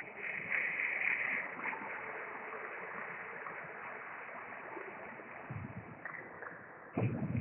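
Steady hiss of sports-hall background noise, louder in the first second or so, with a short louder sound near the end.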